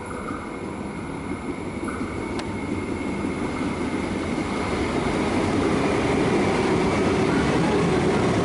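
Suburban electric train at a station platform: a steady rumbling noise that grows steadily louder over several seconds.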